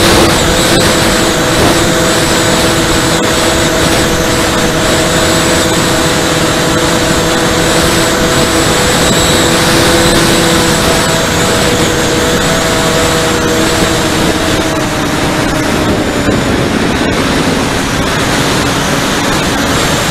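Electric motors and propellers of an E-flite Convergence VTOL model plane in forward flight, picked up by the onboard camera: a steady propeller hum with a thin high whine over loud wind rush on the microphone. The hum sinks slightly in pitch about fifteen seconds in.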